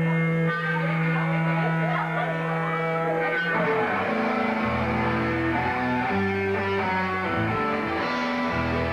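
Live rock band with guitar: a held, ringing chord for about three and a half seconds, then a riff of short, changing notes with a heavy low end.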